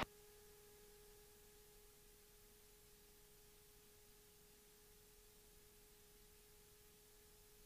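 Near silence: the louder sound cuts off right at the start, leaving only a faint, steady electronic tone with a few fainter overtones.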